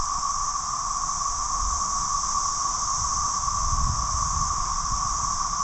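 A dense chorus of cicadas in the trees: a loud, steady drone with an even hum and a higher hiss above it.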